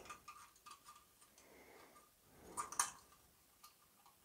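Light clicking and ticking of thin sheet-metal kit parts being handled and fitted together by hand: a few faint ticks in the first second, then a louder cluster of short clicks about two and a half seconds in.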